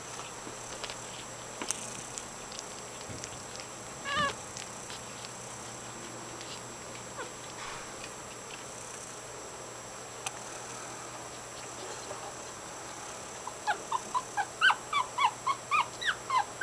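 Three-week-old puppy giving a single short squeak about four seconds in, then near the end crying in a quick run of short high-pitched squeals, about three a second.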